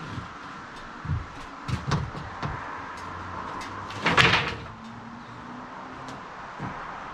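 Handling noise: scattered knocks and thumps, with one louder scraping clatter about four seconds in.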